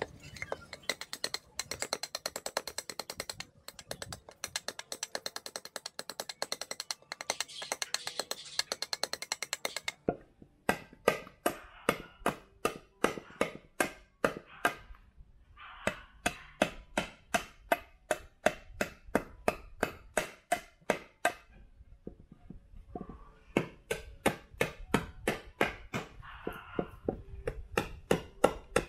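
A cleaver chopping at the rim of a wooden bowl blank braced on a stump. First comes a fast run of light clicking strikes with two short breaks. About ten seconds in it changes to heavier, separate chops, about three a second.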